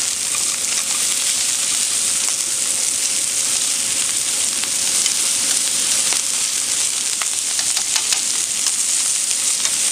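Salted pork belly slices frying in their own rendered fat on an electric barbecue hotplate: a steady sizzle with scattered crackles and pops as the fat renders out and the meat crisps.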